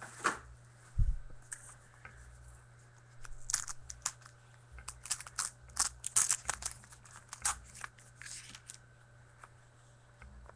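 Trading card pack being opened: a wrapper crinkling and tearing in quick crackly bursts, with a soft thump about a second in.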